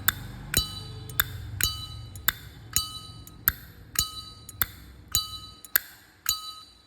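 Solid-brass, chrome-plated Zippo lighter being flipped open and snapped shut over and over, about twice a second. Every other click, the opening, rings with a loud, clear metallic 'Zippo clink' that fades quickly.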